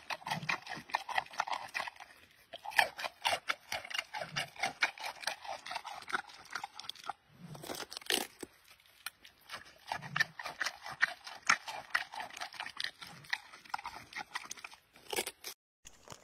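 Giant panda crunching and chewing bamboo: a rapid run of crisp crunches and snaps, several a second, with a brief break about seven seconds in.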